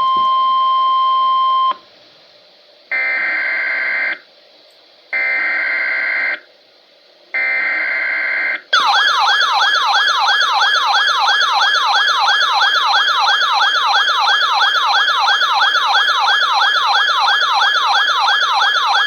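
Weather alert radio broadcast tones: a steady tone, then three data bursts of an emergency alert header, then the receiver's loud warbling siren alarm, a fast falling warble repeating about two and a half times a second, that signals an incoming weather warning.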